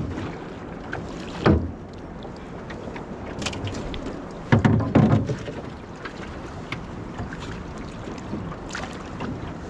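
A small rowboat working on the water: a knock about one and a half seconds in, then a heavier cluster of knocks and splashes around five seconds in, over a steady background hiss.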